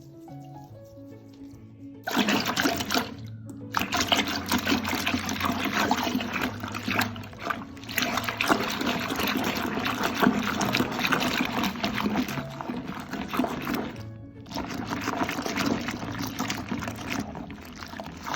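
Water running hard from a tap, starting suddenly about two seconds in, breaking off briefly twice and stopping near the end, over soft background music.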